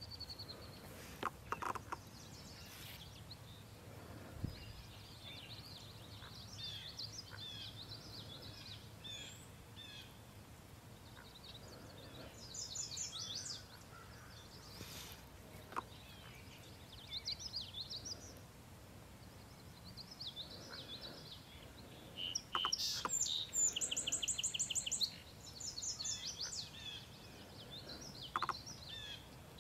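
Birds chirping and singing in short, high phrases over a faint outdoor hiss, with a loud, rapid trill lasting a couple of seconds near the end.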